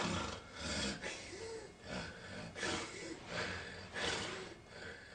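A person's noisy breathing: harsh breaths repeating about every three quarters of a second, some with a low rattling tone.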